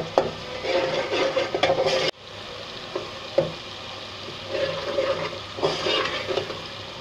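Onion, tomato and spice masala frying in ghee in a metal pot, sizzling as a spoon stirs and scrapes through it, with a few sharp clicks of the spoon against the pot. The masala is fully fried and has released its ghee. The sound cuts out briefly about two seconds in.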